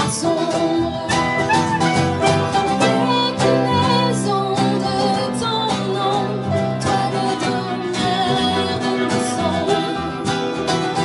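A woman singing live with a small acoustic band: strummed acoustic guitar, upright piano, electric bass and clarinet playing together at a steady pace.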